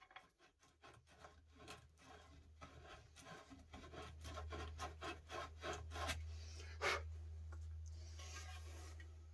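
Hand abrading of a wooden guitar body's carved contours: a run of short rubbing strokes, about three a second, thinning out after about seven seconds, over a low steady hum.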